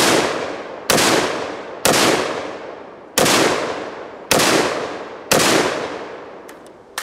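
AR-15 rifle in 5.56 fired in slow, deliberate single shots: five sharp reports roughly a second apart, each trailing off over about a second. Two faint clicks follow near the end.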